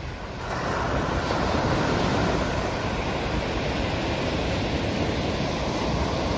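Pacific Ocean surf: breaking waves and washing water make a steady rush that swells about half a second in.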